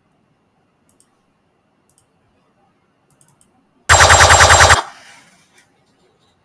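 A sound effect played back: one loud, rapid rattling burst of about a dozen pulses in under a second, about four seconds in, trailing off quickly. A few faint clicks come before it.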